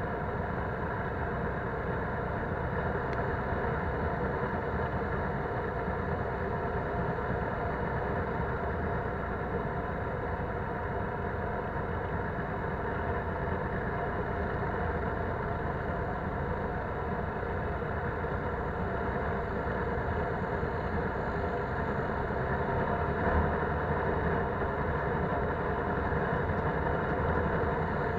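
Polaris Sportsman 570 ATV's engine running steadily as the ATV rides along a dirt trail.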